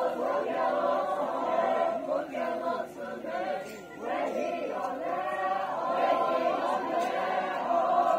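A chorus of young voices singing a chant-like song together, with a brief break in the singing about halfway through.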